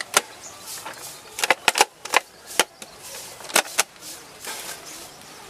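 Thin clear plastic bottle crackling and clicking as hands grip and turn it, in irregular sharp snaps.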